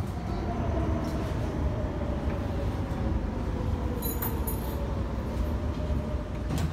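Metro train running, heard from inside the carriage: a steady low rumble with a faint whine that slowly falls in pitch.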